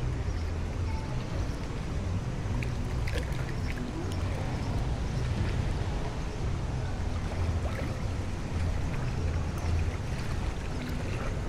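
Light water splashing and lapping as a toddler wades and paddles his hands in a shallow pool, over a steady low rumble.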